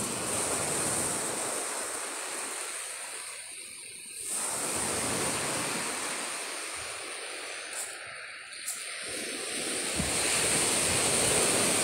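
Ocean surf breaking on a sandy beach: a steady rushing wash that swells and fades, dipping twice and building again about four seconds in and near the end.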